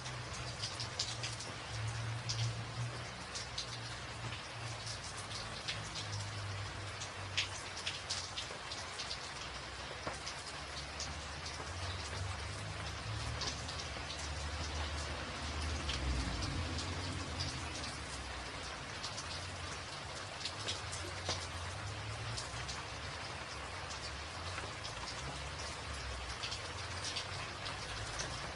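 Steady rain falling, with many distinct raindrop ticks and splashes over a continuous hiss and a low rumble underneath.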